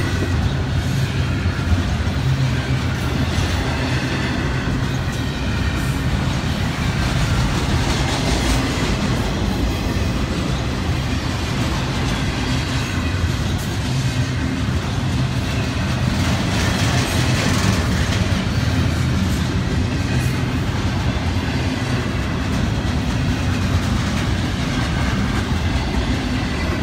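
Florida East Coast Railway double-stack intermodal container cars rolling steadily past: the continuous rumble of steel wheels on rail.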